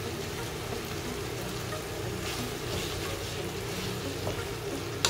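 Chicken pieces sizzling and bubbling in their juices and red chilli masala in a pan, with a spoon stirring through them about two seconds in.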